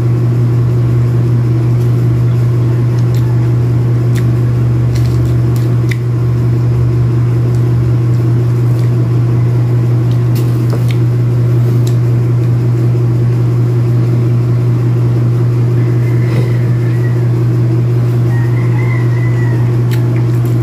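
A loud, steady low hum that does not change, with a few faint clicks scattered through it and faint short chirps near the end.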